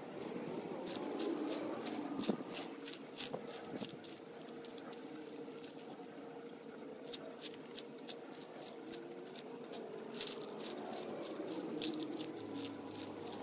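Sulcata tortoise biting and crunching crisp romaine lettuce leaves: sharp, irregular crunches a few times a second, over a steady low hum.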